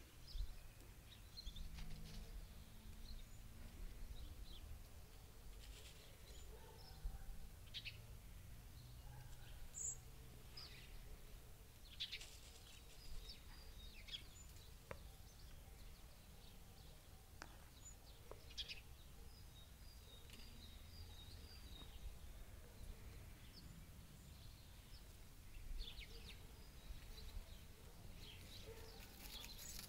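Faint, scattered songbird chirps and short calls, with a brief run of repeated high notes about two-thirds of the way in, over a low background rumble.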